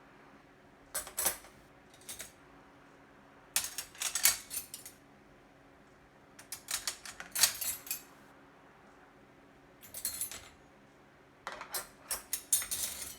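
Metal silverware clinking and rattling as forks, knives and spoons are sorted by hand into a utensil tray. The clinks come in short clusters every second or two, about six bunches in all.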